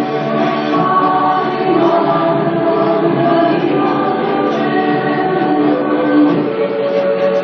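Music with choir-like singing in long held notes that change pitch every second or two.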